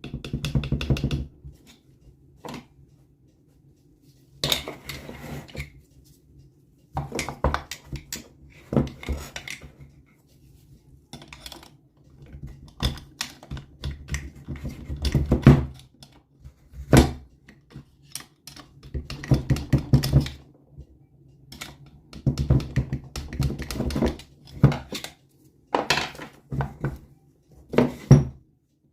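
Metal hand tools clinking, tapping and scraping on the parts of an NSU Quickly moped engine being taken apart, in irregular bursts with short pauses between, over a low steady hum.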